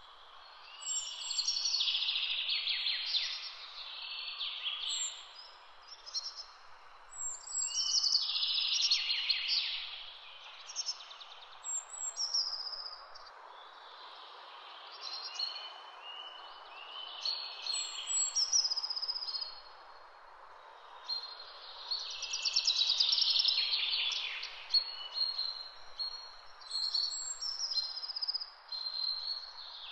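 Songbirds singing in the hedgerows, phrase after phrase of a few seconds each with high, rapid trills and chirps, sometimes overlapping, over a steady low hiss.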